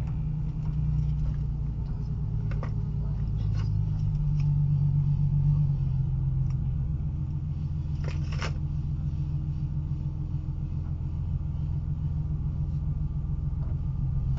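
Ford Mustang driving, with a steady low engine and road rumble. A few brief clicks sound through it, and a louder half-second noise comes about eight seconds in.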